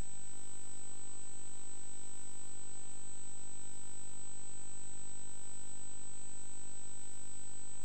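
A steady high-pitched tone that holds unchanged, over a faint low electrical hum.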